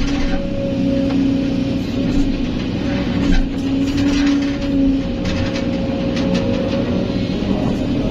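Kobelco SK200 excavator's diesel engine and hydraulics running under load, heard from inside the cab: a steady drone with a hum that swells and dips as the boom and bucket work. Scattered scrapes and clicks come through in the middle as the bucket digs into the sand and lifts out loaded.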